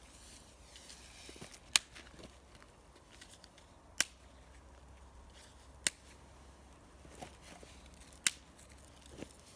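Wood burning in a small campfire, popping sharply four times about two seconds apart over fainter crackling.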